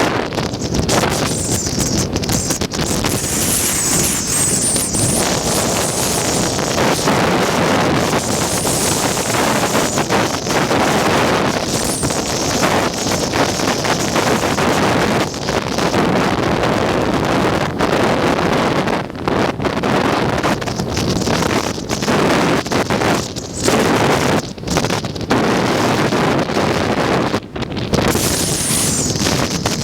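Strong wind blasting across the microphone in uneven gusts, with a few brief lulls in the second half.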